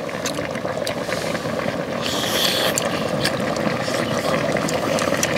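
Pork back-bone stew bubbling steadily in a large pan over a burner, with small clicks of metal tongs and chopsticks and chewing.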